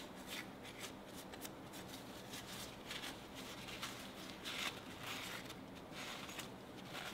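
Faint, irregular clicks and rustles of hands handling small engine parts, over a steady low hum.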